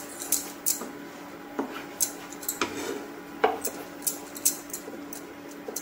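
A steel spoon scraping and clicking irregularly against a coated frying pan as a thick masala paste is stirred continuously while it fries.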